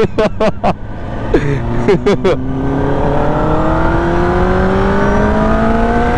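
Kawasaki ZX-10R's inline-four engine pulling under acceleration, from about two and a half seconds in, its pitch rising slowly and steadily, over wind noise.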